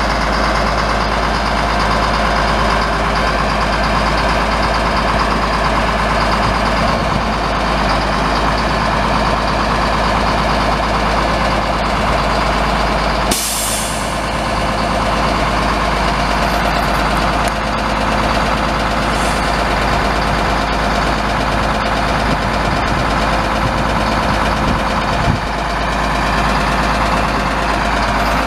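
Caterpillar 3126 7.2-litre inline-six turbo diesel running steadily; the engine is listed as knocking. About 13 seconds in there is one short, sharp hiss of released air, typical of the truck's air-brake system.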